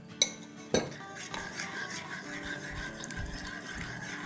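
Metal spoon stirring a thin flour-and-cornstarch slurry in a bowl, with two sharp clinks against the bowl in the first second, over soft background music.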